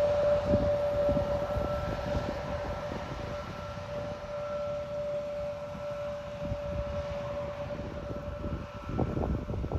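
Airbus A321 jet engines running at a distance: a steady high whine over a low rumble, and the rumble swells near the end.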